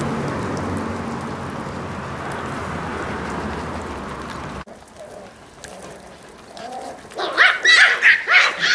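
Miniature pinscher puppies giving a rapid string of short, high yaps and barks near the end while competing over raw meat. Before that, a steady low rumble of background noise that cuts off abruptly about halfway through.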